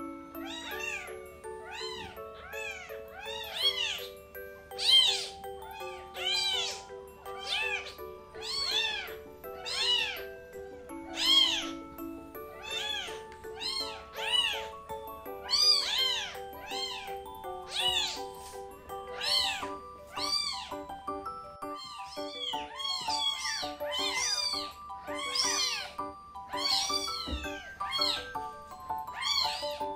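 Newborn kitten, two days old, mewing loudly and over and over as it is bottle-fed, each cry rising and then falling in pitch, about one or two a second: it is complaining at a milk bottle it cannot yet drink from well.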